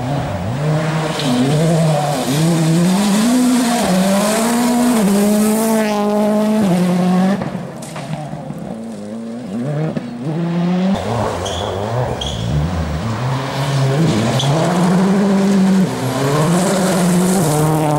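Rally car engine driven hard, its pitch climbing and dropping again and again as the driver revs and changes gear. The engine eases off for a few seconds around the middle, then revs hard again.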